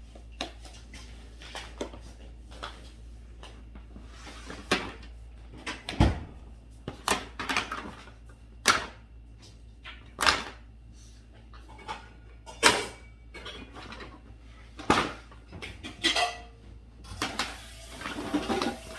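Household objects being handled and packed into a bag: irregular knocks, clatters and rustling, which grow more frequent and louder about five seconds in.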